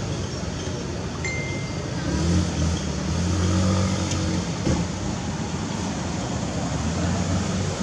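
Low engine rumble of a passing motor vehicle, swelling about two seconds in and fading after about four and a half, over a steady outdoor hiss.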